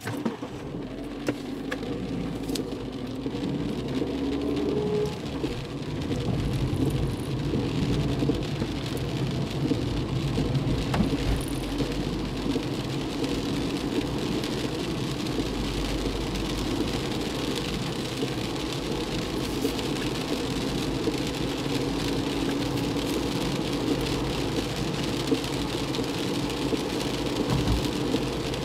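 Car driving in heavy rain, heard from inside the cabin: steady engine and wet-tyre road noise with rain beating on the windshield. The noise builds over the first several seconds as the car pulls away and gathers speed, then holds steady.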